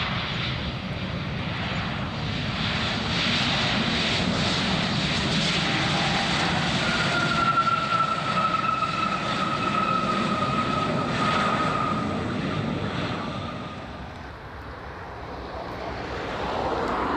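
Turbofan engines of an Embraer E-Jet airliner running as it rolls along the runway: a steady roar with a thin whine that slides slowly down in pitch over several seconds midway. Near the end the sound dips, then another jet's engine noise rises.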